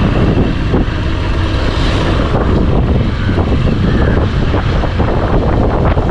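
Motorcycle riding along a road, its engine running steadily under heavy wind noise on the microphone.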